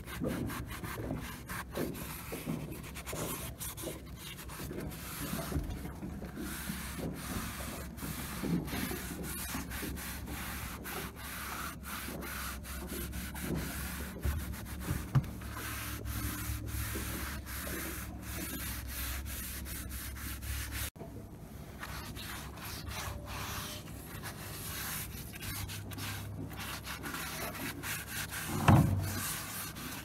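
Hand rubbing strokes on wooden trim as oil is worked into the cockpit timber, going on steadily. Near the end there is a single louder knock.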